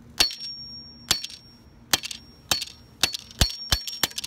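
A hammer repeatedly striking a smartphone's plastic back cover on concrete: about nine sharp blows at an uneven pace, coming faster near the end, several with a thin high ring.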